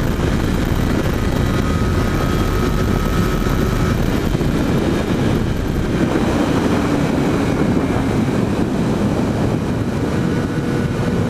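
Yamaha XJ6's 600 cc inline-four engine running on the move, heard from a helmet-mounted camera amid rushing wind and road noise, steady in level.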